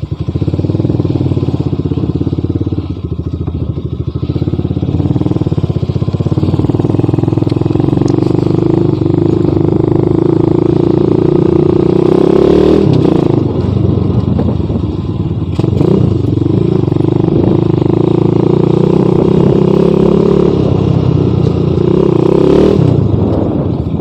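Motorcycle exhaust through an aftermarket SC Project muffler with its silencer insert fitted, the engine running steadily with short drops in its note about halfway through, a few seconds later and near the end. It is still noisy even with the silencer in.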